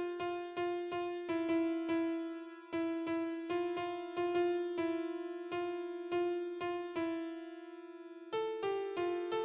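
Background music: a solo piano-like keyboard playing a slow melody of single struck notes that fade after each strike, pausing for about a second before the next phrase starts near the end.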